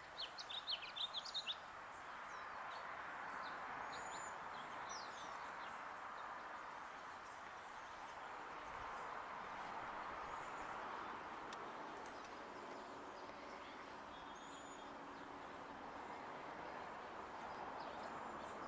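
Quiet outdoor ambience: a steady, even background noise with small birds chirping. A quick run of chirps comes in the first second or two, then only a few faint high chirps.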